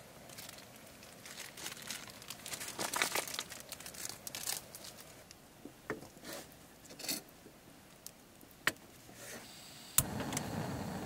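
Crinkling and rustling as something is handled, broken by a few sharp clicks. Near the end a steady rushing noise sets in abruptly.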